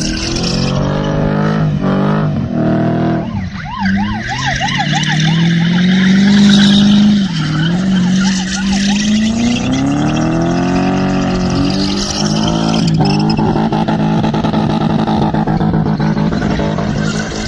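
BMW E30's engine running hard and revving, its pitch rising and falling, with a brief high warbling squeal partway through.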